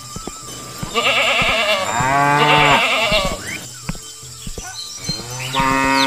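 Farm animal calls: a sheep bleating twice in wavering calls, then a cow starting a long moo near the end. Light clicks are scattered throughout.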